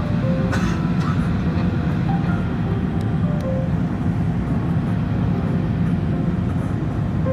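Airbus A380 landing, heard as a steady low rumble with a few faint short tones over it.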